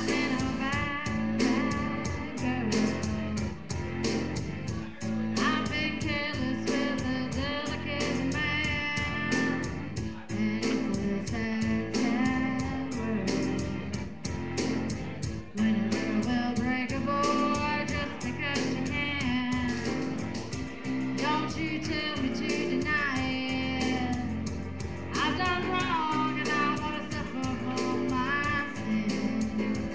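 Music: a song with a singing voice over guitar accompaniment and a steady beat.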